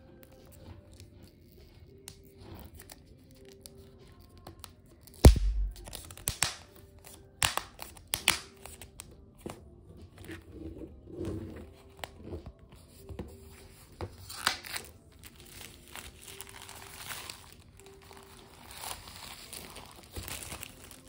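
Clear plastic shrink-wrap being torn and peeled off a cardboard box: crackling and crinkling, with a sharp snap and thump about five seconds in and a longer stretch of rustling crinkles in the second half. Soft background music plays underneath.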